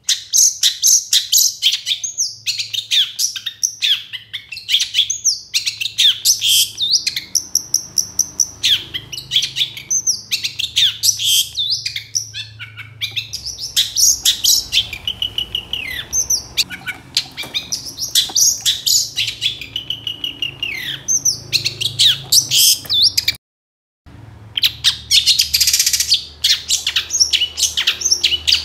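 Long-tailed shrike (cendet) singing hard: a fast, almost unbroken jumble of varied chattering and whistled notes. The song breaks off in a brief silence about two-thirds of the way through, then resumes.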